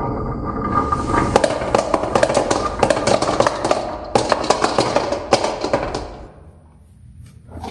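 Marbles rolling and clattering down a wooden HABA marble run, a rapid stream of clicks and knocks over a rolling rumble that dies away about six seconds in.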